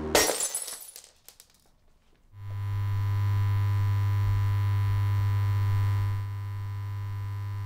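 A wine glass hits a wooden table and shatters, with a few small pieces clinking as the ringing dies away. After a moment of near silence, a steady electrical hum with a faint hiss comes in about two seconds later and runs on.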